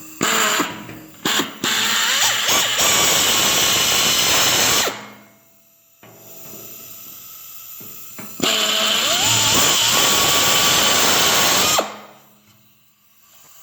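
Power drill boring small starter holes in tailgate sheet metal: a few short trigger blips, then two steady runs of about three seconds each with a pause between, the motor's whine rising as it spins up and then holding.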